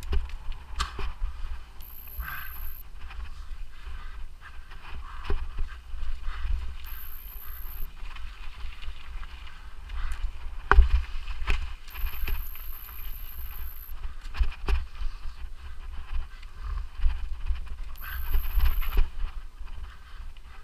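Mountain bike ridden fast over a rough forest trail: tyres on dirt with the bike rattling and knocking sharply over roots and rocks, over a constant low rumble. A thin high whine comes and goes four times.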